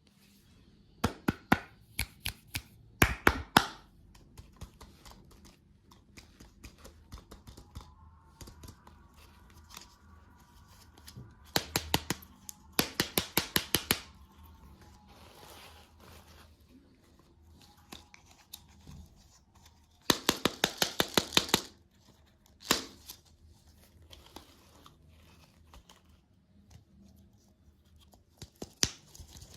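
Close-miked ASMR sounds of candy and desserts being torn open and cut: several bursts of fast, crisp crackling clicks with quieter pauses between them.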